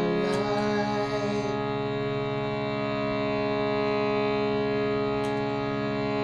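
Sustained sound-bath drone: many steady overtones held together without a break. A wavering higher tone above it fades out within the first second or two, leaving the even drone.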